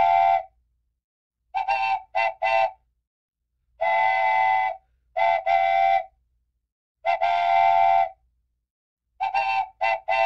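Multi-tone train whistle sounding in long blasts of about a second, alternating with quick groups of two or three short toots, each stopping abruptly.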